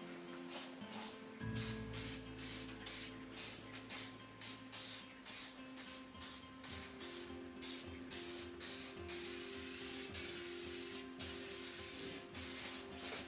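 Aerosol spray can of primer hissing in many short bursts, about two a second, then a longer unbroken spray about nine seconds in.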